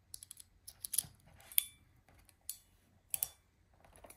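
Hand crimping tool for Deutsch pins clicking as it is worked, a series of irregular sharp clicks as the pins are crimped onto the wires.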